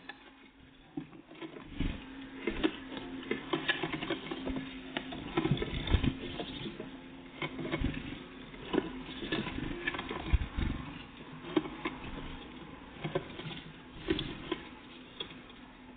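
Small birds, great tits and blue tits, feeding at a bird feeder: a dense, irregular run of beak taps on seeds and scratches from their feet hopping on the feeder, close to the microphone.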